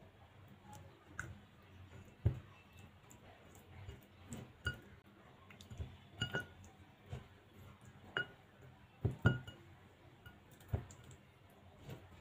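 Chicken drumsticks being hand-mixed in marinade in a glass bowl, knocking and clinking against the glass at an irregular pace of about once a second. Some knocks leave a short ringing tone from the glass, and the loudest come about two seconds in and again near nine seconds.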